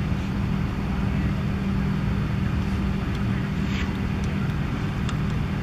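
Steady low mechanical hum with an even drone, like a running engine, and no ball-on-bat strike.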